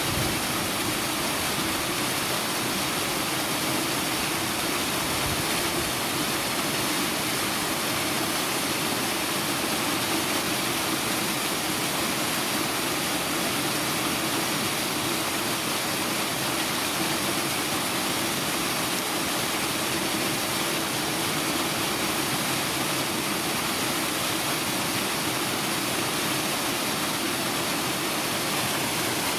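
Steady, even rushing noise with a constant low hum under it, unchanging throughout.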